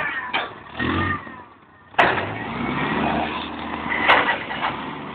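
Forklift engine running, louder again from about two seconds in. There is a sharp knock as it picks up and another bang about four seconds in.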